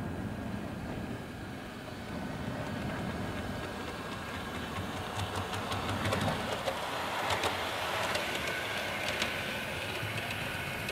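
Bachmann model Windhoff MPV running along the layout track, its motor, which drives one bogie, whirring and its wheels rolling on the rails, with a few light clicks in the middle of the run.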